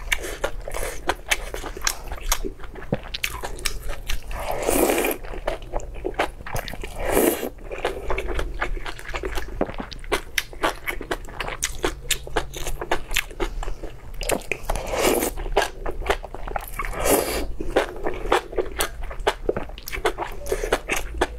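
Close-miked eating of enoki mushrooms from spicy broth: steady wet chewing full of small sharp clicks and crunches, broken by a few longer, louder slurps.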